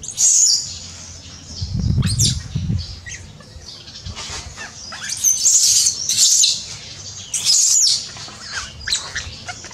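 Baby monkey crying in distress, shrill high-pitched squeals in repeated bursts, loudest in the second half. There are a few low thuds about two seconds in.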